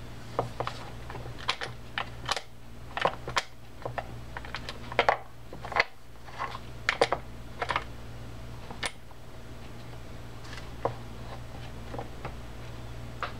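Small irregular clicks and taps of a spinning reel's internal parts being handled and seated as the crosswind block is centred over the main gear, thinning out after about eight seconds, over a steady low hum.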